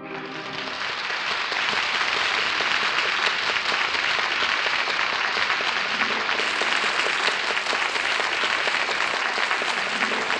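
Studio audience applauding after a sung number, in an old radio broadcast recording. The applause swells over the first second or two, then holds steady and dense.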